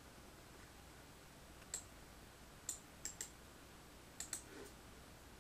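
Computer mouse button clicking: faint, scattered clicks starting about two seconds in, some in quick pairs.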